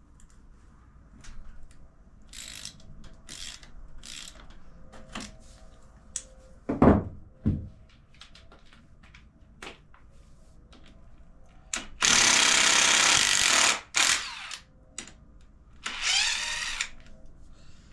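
Hand ratchet clicking in short bursts as the clutch cover bolts are broken loose, then an impact gun runs for about two seconds, spinning a bolt out, and again briefly near the end. A loud thump comes about seven seconds in.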